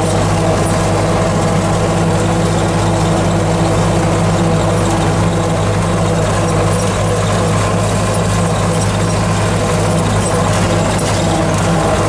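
MTZ-50 tractor's four-cylinder diesel engine running steadily while the tractor drives along, heard from inside the cab.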